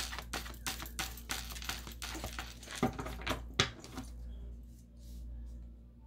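A deck of tarot cards being shuffled by hand: a quick run of soft slaps and clicks for about four seconds, then quieter handling near the end.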